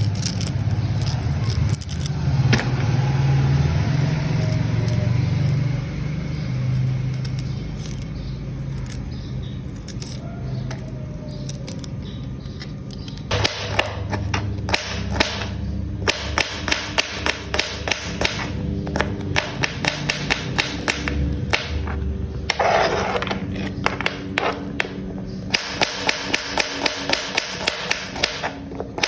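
Repeated sharp knocks or taps, scattered at first and then coming about two a second near the end, over a low hum.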